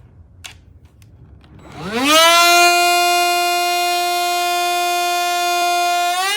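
Black+Decker Dustbuster cordless handheld vacuum switched on about two seconds in, its motor whining up quickly to a steady high pitch. The pitch steps up slightly near the end.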